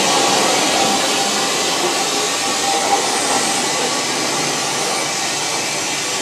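Steady hiss of steam from a narrow-gauge steam locomotive close alongside, slowly getting quieter.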